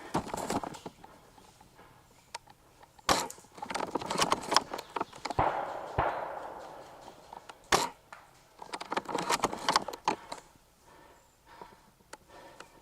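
Rustling and crunching of footsteps through dry undergrowth, in uneven bursts, with a few sharp cracks mixed in.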